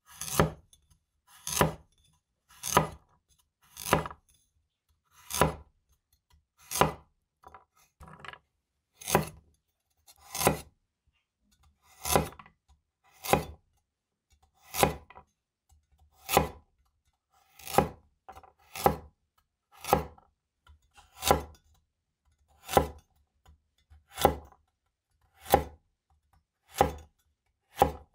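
Stainless-steel vegetable cleaver (Winco KC-401) chopping a carrot into round slices on a wooden cutting board: a sharp knock each time the blade cuts through and hits the board, about one every second and a half, some twenty in all.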